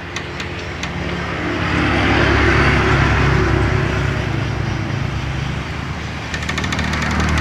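Violent storm wind gusting, swelling about two seconds in, easing off, then rising again near the end, over a steady low engine hum.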